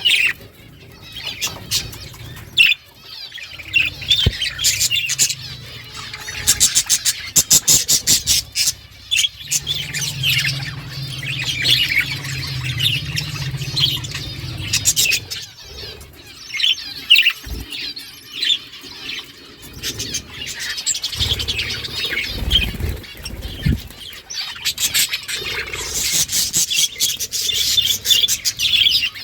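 A flock of budgerigars chirping and chattering without a break. There are two stretches of rapid clicking, one about a quarter of the way in and one near the end.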